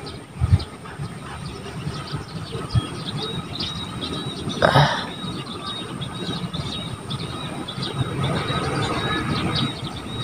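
Outdoor background noise: a steady low rumble with many short, high chirps repeating throughout, and one brief louder sound a little before the middle.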